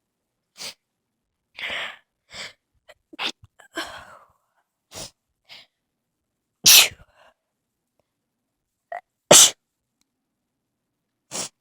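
A run of short sneezes: several softer ones, then two loud sneezes in the second half, about three seconds apart.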